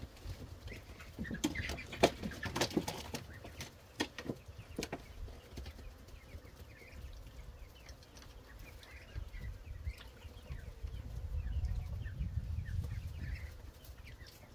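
A duck splashing and moving in a shallow stock-tank pond, with a run of sharp splashes or flaps a couple of seconds in. Faint chirping bird calls can be heard throughout.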